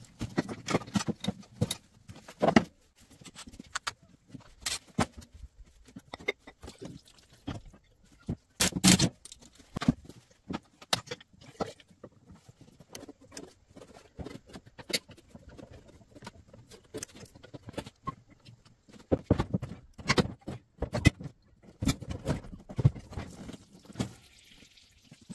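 Hand tools and metal engine parts clinking, knocking and scraping in an irregular run of short sounds, as carburetors and fittings are worked off a two-stroke snowmobile engine. Louder clusters of knocks come near the start, around nine seconds in, and again around twenty seconds in.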